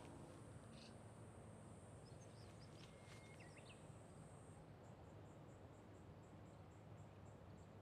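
Faint outdoor insect song: a thin, high, steady buzz that breaks into an even pulsing of about three chirps a second just past halfway, with a few faint bird chirps in the middle.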